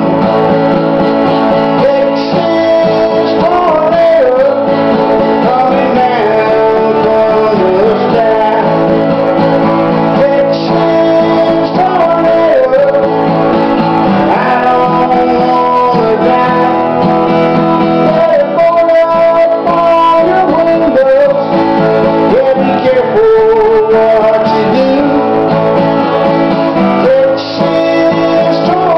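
Strummed acoustic guitar with a harmonica in a neck rack playing a wavering, bending melody line over it, in a steady country-style song.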